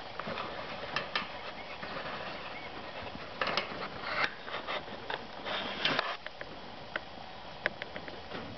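Dry hay rustling and crackling in a rabbit nest box as the doe noses through it to clean her newborn kits: scattered soft clicks, with louder rustling bursts about three and a half seconds in and again just before six seconds.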